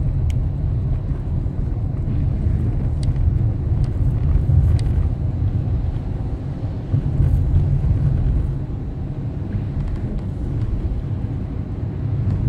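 Car driving on a rain-wet road, heard from inside the cabin: a steady low rumble of engine and tyres, with a few faint ticks.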